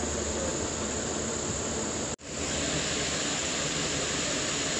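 Steady background noise with a continuous high-pitched hiss and a low hum, broken once by a sudden, very brief dropout about two seconds in.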